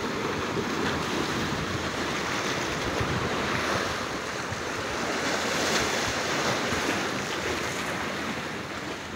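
Sea waves washing and splashing against the rocks of a boulder breakwater: a steady surf wash that swells a little midway.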